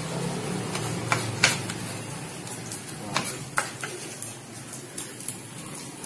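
Kitchen knife dicing red onion on a plastic cutting board: irregular sharp taps of the blade striking the board, over a low hum that fades about two seconds in.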